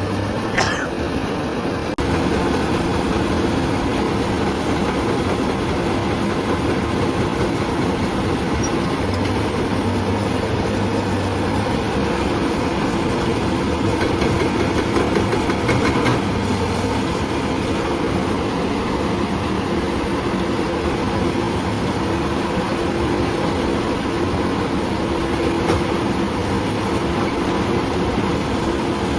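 Hyundai excavator with a hydraulic breaker at work: the diesel engine runs under load while the breaker chisel hammers rock in a rapid, continuous rattle of blows.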